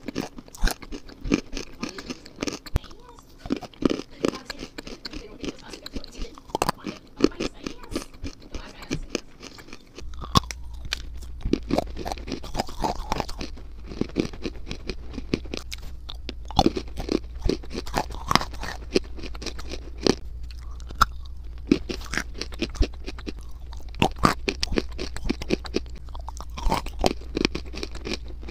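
Close-miked crunching and chewing of hard chalky chunks of eating clay and chalk, a dense run of sharp crunches and bites at the lips. About ten seconds in a steady low hum starts underneath the crunching.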